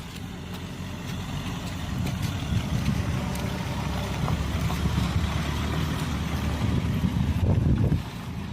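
A vehicle on the move, giving a steady low rumble with scattered small knocks.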